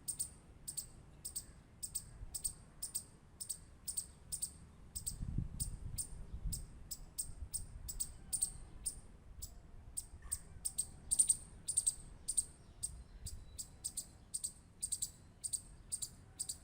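Squirrel clicking: a steady run of short, high-pitched clicks, about two to three a second.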